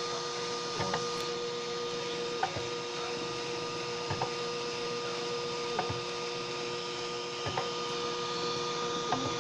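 Homemade 3D printer's stepper motors running through a print with a steady whine of a few held tones, broken by a short chirp about every second and a half to two seconds, six times in all.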